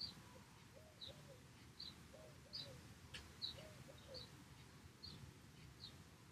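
Faint birdsong: a dove cooing in repeated pairs of low notes while a small bird chirps about once a second, with a faint click about three seconds in.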